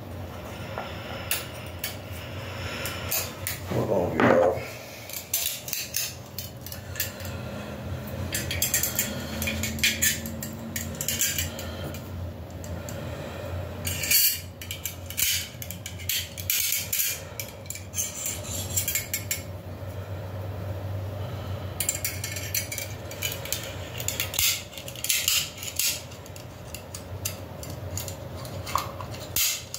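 Small hard clicks, taps and scrapes of a pistol magazine's extension base plate, spring and body being worked by hand as the base plate is forced on: a stiff, awkward fit. A short squeak rises in pitch about four seconds in.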